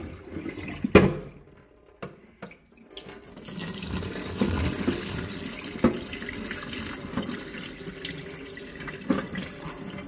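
Water pouring from a dehumidifier's plastic collection bucket into a stainless steel sink, a steady splashing stream that starts about three seconds in. A sharp knock comes about a second in, before the pour.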